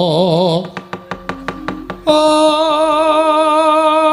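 Javanese wayang kulit suluk singing. A sung line with wide vibrato breaks off about half a second in, followed by a quick run of about ten sharp knocks from the puppeteer's percussion. About two seconds in, a voice takes up a long held note with vibrato, pitched higher than the first.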